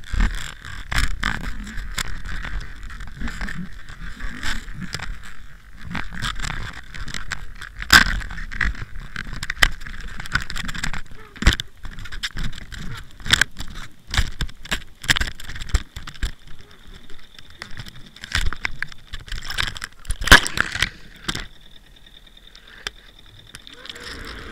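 Irregular sharp knocks and clicks from an underwater camera hanging on a mackerel handline, as the line and hooked fish jerk and bump it, over a steady hum. The knocks thin out near the end.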